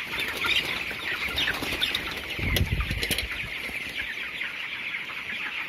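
A large flock of broiler chickens peeping steadily. About halfway through comes a short flurry of wing flapping and scuffling as birds are handled for weighing.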